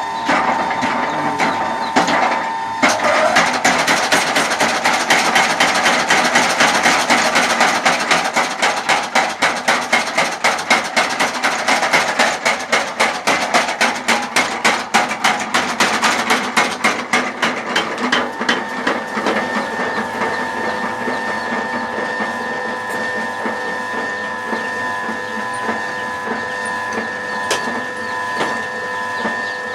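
Motor-driven blacksmith's power hammer forging metal, striking in a fast, steady rhythm of about three to four blows a second. About two-thirds of the way through, the blows stop and the machine runs on with a steady whine.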